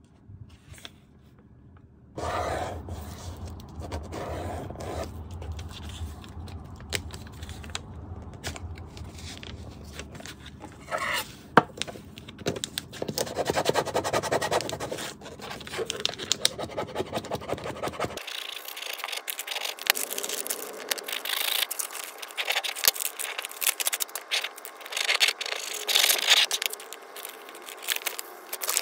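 Paper and a thin adhesive film sheet being handled, slid, rubbed and peeled by hand: rustling and scraping, turning into sharper crinkling and crackling about two-thirds through.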